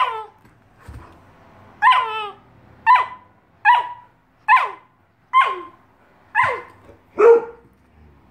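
A dog barking in a run of eight short, high-pitched yips, about one a second, each falling in pitch.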